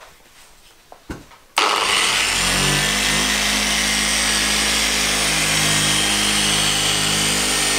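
Electric dual-action polisher switched on about a second and a half in, spinning up briefly, then running steadily as its foam pad spreads cutting compound over the car's paint.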